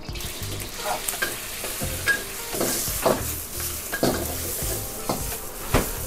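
Fried rice sizzling in a wok over a high gas flame, with a metal spatula scraping and clanking against the wok about once a second as it is stir-fried.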